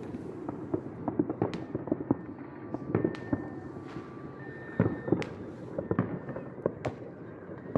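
Many fireworks going off across a city, with irregular overlapping bangs and pops over a constant crackle.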